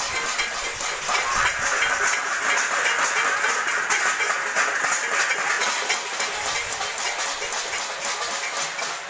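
Many people clapping and banging metal plates and utensils together, a steady din of rapid clanging and clicks, densest in the first half.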